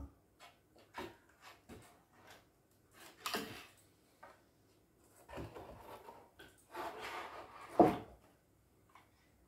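IKEA LACK shelf being slid onto the metal rods of its wall bracket: a few light knocks, then scraping and rubbing of the shelf on the rods. A sharper knock about eight seconds in is the loudest sound, as the shelf comes to sit on the wall.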